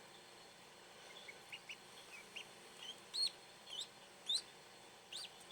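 Newly hatched ducklings peeping: a few soft, short high peeps start about a second in, then four louder peeps, each rising and falling in pitch, in the second half.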